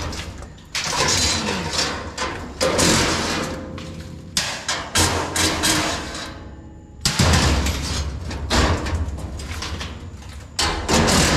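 Sheet-metal floor pieces of the removable firewall being worked loose: a series of loud metal clanks and scrapes with sudden starts, some ringing briefly.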